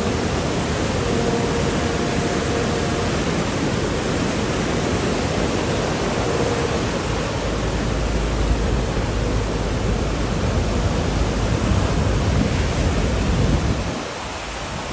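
A loud, steady rushing noise, with a heavy low rumble that builds in the second half and drops away suddenly near the end.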